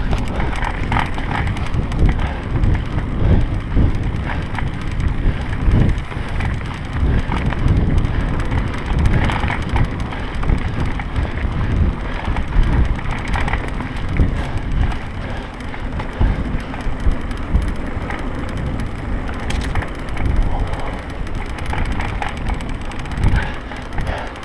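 Mountain bike riding fast over a dirt trail, heard through a handlebar-mounted camera's microphone: a continuous rumble of tyres and bike rattling over rough ground, with wind buffeting the microphone and irregular jolts from bumps.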